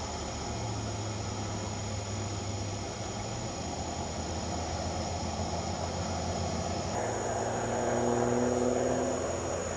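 Distant engine drone over steady background hiss. A higher droning engine tone, rising slightly, swells about eight seconds in and fades near the end.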